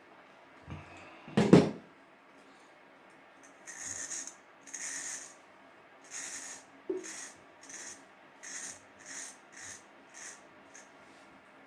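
A single sharp knock about a second and a half in, then a run of short rasping strokes of a Wilkinson Pall Mall safety razor cutting through about a week's stubble, the strokes coming quicker and shorter towards the end.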